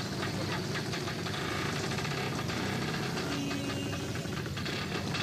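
Small motorcycle engine running as it passes along a bazaar lane, with busy street clatter around it.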